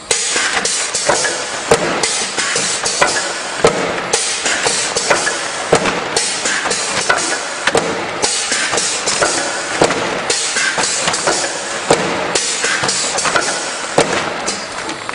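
Paper-bag packaging line machinery running loud: a dense clattering noise with frequent irregular clicks and knocks from the take-off conveyor and bag-closing mechanism, starting abruptly.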